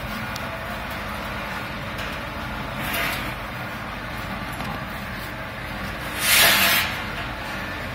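Geared electric motor of a powder screw feeder running with a steady hum. A brief hiss comes about three seconds in, and a louder hiss lasting about half a second comes about six seconds in.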